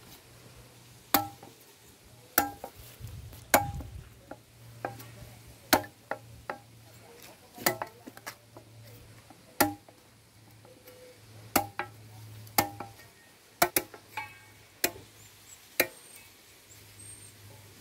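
Machete chopping cassava stems into short planting cuttings on a stone: about fifteen sharp knocks, roughly one a second, each with a brief ring.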